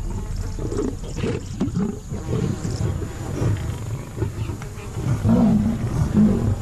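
Lions growling low and rough while feeding on a kill, with louder growls near the end.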